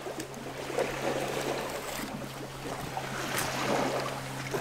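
Soft scraping of a fillet knife slicing along a northern snakehead fillet on a wooden plank, as the rib bones are cut out. Under it runs a steady low hum with outdoor wind and water noise.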